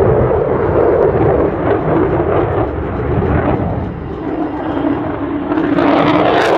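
Jet noise from the F-35A Lightning II's single Pratt & Whitney F135 afterburning turbofan, a steady low rumble. About a second before the end it swells louder and takes on a sharper, hissing edge as the jet comes closer.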